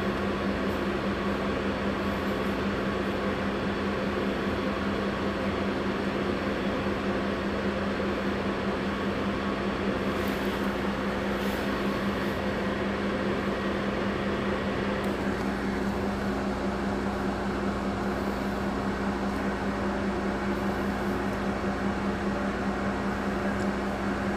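Heuliez GX 137 city bus standing at idle, its engine and auxiliaries running with a steady hum.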